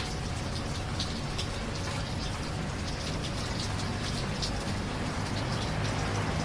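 Steady rain falling, with scattered individual drops striking close by over a continuous low rumble.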